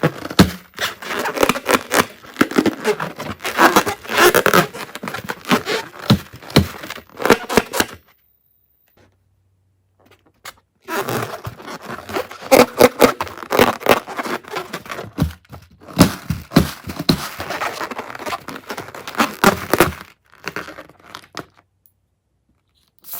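Glossy slime being squished and stretched by hand: sticky crackling with many small clicks and pops. It stops for about three seconds, then starts again, and it turns faint near the end.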